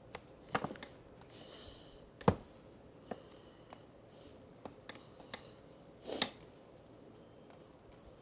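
Plastic fidget spinners being handled and flicked: scattered light clicks and knocks, with one sharper knock a couple of seconds in and a brief rustle near the end.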